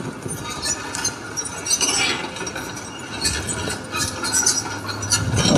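Demolition debris clattering and clinking as a crawler excavator pulls at a collapsed timber and corrugated-metal structure, with the excavator's engine running underneath.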